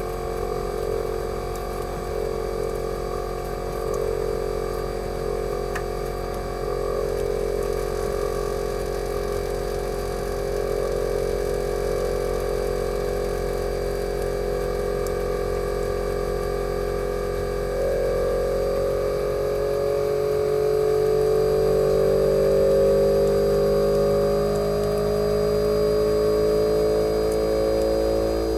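Fujitsu General AO-C28H outdoor unit's inverter compressor humming steadily during a defrost cycle. About two-thirds of the way in, its tones begin to rise slowly and it gets a little louder as the compressor gradually speeds up.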